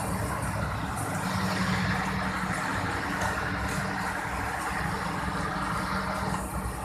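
Heavy machinery engine running steadily, a low hum with mechanical noise over it.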